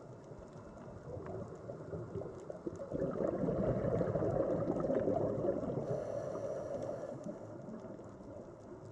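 Underwater recording over a coral reef: a bubbling, gurgling rush that swells about a third of the way in and fades near the end, typical of a scuba diver's exhaled bubbles passing the camera housing, with faint scattered clicks throughout.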